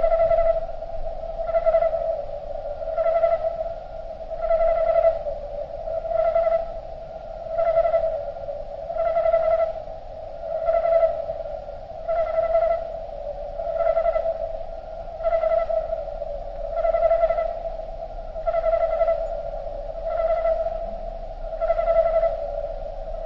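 Cricket chirping slowed down, turned into a steady mid-pitched hum that swells and fades about every one and a half seconds, with higher overtones ringing at each swell.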